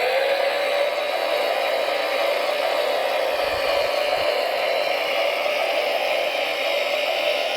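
Steady whine of a radio-controlled model vehicle's electric motor and gearbox running under load, over a hiss.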